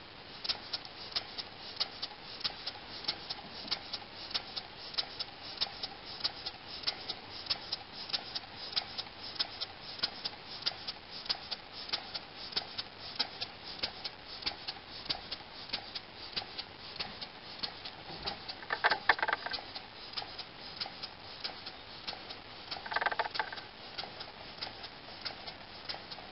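Model over-crank vertical steam engine running on compressed air at 5 PSI, giving a fast, even ticking beat that starts just after its flywheel is spun by hand. Twice in the last third a louder brief sound rises over the ticking.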